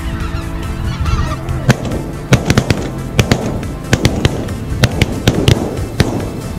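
Geese honking overhead, then a rapid volley of shotgun shots from several guns, about fifteen in four seconds.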